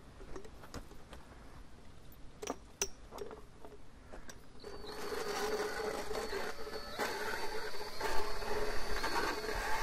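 Motorized dental float (power float) starting up about halfway through and grinding a horse's teeth: a steady high whine over a rough, uneven grinding noise. A few sharp clicks come before it starts.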